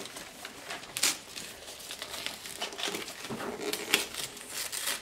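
Gift wrapping paper crinkling and rustling as a present is pulled open, with a sharper crackle about a second in.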